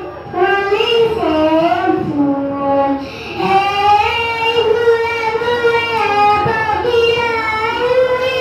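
A young boy singing a melody into a handheld microphone, holding long notes, with a brief pause for breath about three seconds in.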